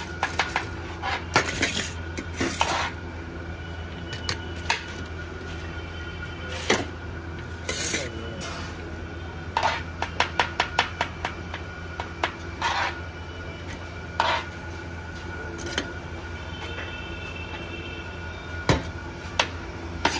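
Steel serving spoon and stainless steel plates clinking, knocking and scraping against a large steel vessel and counter as biryani is dished out. The clatter comes irregularly, over a steady low hum.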